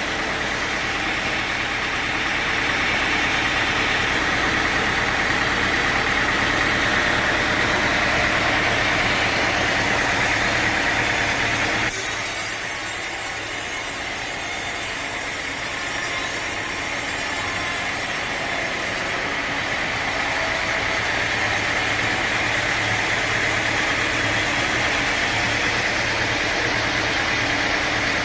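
Sawmill machinery running steadily, an engine-driven saw with a constant high whine over a low drone. The sound changes abruptly about twelve seconds in, the low drone dropping and a high hiss coming in for several seconds before the steady running returns.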